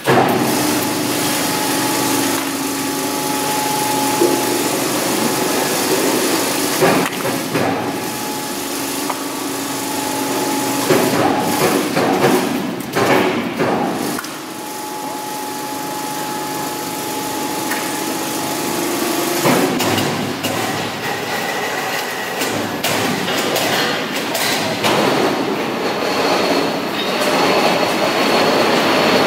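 Generator-factory workshop noise: a loud, steady machinery drone with a dense hiss, broken by irregular metal knocks and clanks.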